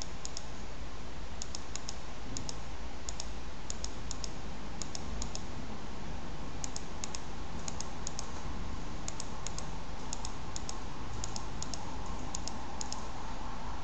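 Computer mouse button clicked again and again at irregular intervals, many clicks coming as quick pairs of light ticks, over a steady low hum.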